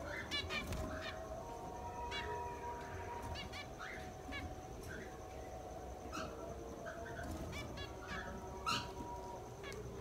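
Zebra finches calling: short nasal, honking beeps from several birds, one or two a second at irregular intervals.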